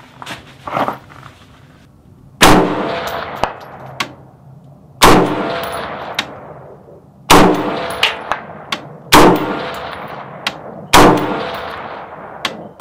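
AR-15 rifle fired five times in slow aimed succession, about two seconds apart. Each report echoes and fades over a second or two. Light handling knocks come in the first second, and faint sharp clicks fall between some of the shots.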